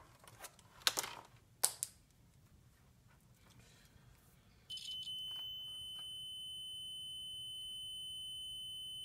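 Digital multimeter's continuity beeper sounding a steady high-pitched tone for about four seconds, starting nearly five seconds in, as the probes bridge a low-resistance fan motor winding. Two short clicks come in the first two seconds, before the beep.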